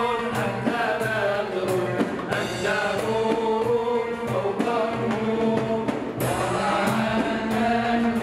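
A group of men singing Islamic praise songs (inshad, madih of the Prophet) together, over a steady drum beat from frame drums.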